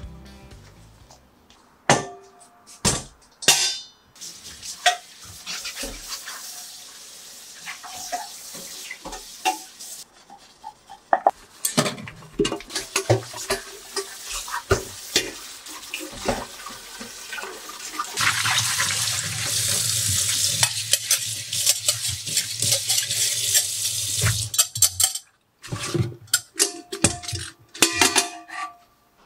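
Small stainless-steel food-waste bin being washed by hand in a stainless kitchen sink: tap water running and splashing, with knocks and clatters of the metal container against the sink. The water runs hardest for several seconds past the middle, then cuts off suddenly.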